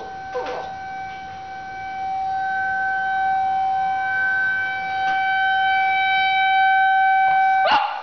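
Outdoor tornado warning siren sounding its monthly test: a steady high tone that grows louder after about two seconds. A Shih Tzu gives a short whine just after the start and a sharp yip near the end.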